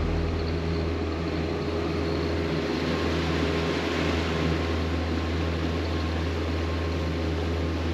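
Boat engine running at a steady speed, an even low hum that does not change.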